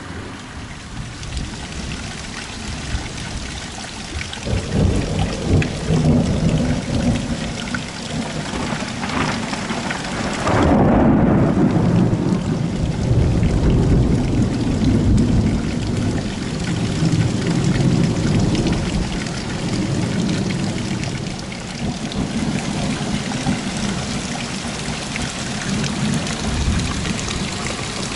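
Heavy rain falling steadily during a thunderstorm. Rolling thunder builds about four seconds in, then a loud thunderclap hits about ten seconds in and rumbles on for some ten seconds before it fades back under the rain.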